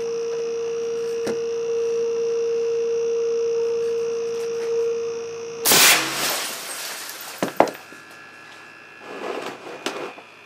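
A steady hum, then a bit over halfway through a solenoid-valve air cannon fires an 8-foot fluorescent tube at about 300 psi: one sudden loud blast that dies away over about a second as the glass tube shatters at the backstop. A few sharp clicks and short rattles of falling debris follow.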